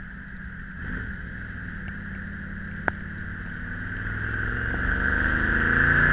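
1962 Corvette's 327 V8 pulling under acceleration: its note rises steadily in pitch and grows louder over the second half. A steady rush of wind and road noise comes through the open convertible, and there is a single sharp click about three seconds in.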